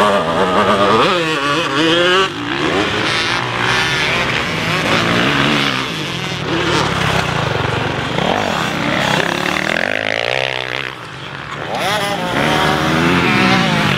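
Several motocross bikes riding a dirt track, their engines revving up and down in overlapping rising and falling pitches as the riders accelerate and shift. The sound dips briefly about eleven seconds in, then picks up again.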